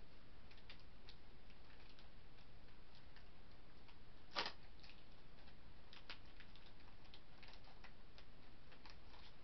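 Faint, scattered clicks and taps of hands handling a plastic toy container, with one sharper click about four and a half seconds in.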